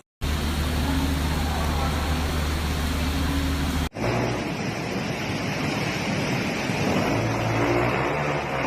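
Loud, steady rushing of water from flash flooding, heard in two amateur clips joined by an abrupt cut about four seconds in, with a faint low hum underneath.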